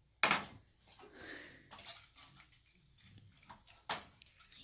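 Tongs stirring penne in a creamy sauce in a frying pan: a sharp knock of the tongs against the pan just after the start and another near the end, with soft wet stirring and small clicks between.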